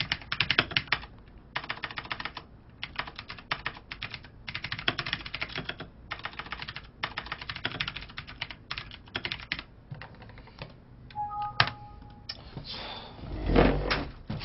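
Rapid typing on a computer keyboard, in bursts of fast key clicks with short pauses between them. A brief electronic two-tone beep sounds about eleven seconds in, and near the end a loud, heavy thump with rustling.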